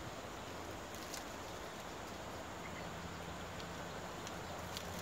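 Steady outdoor background hiss, with a few faint clicks scattered through it.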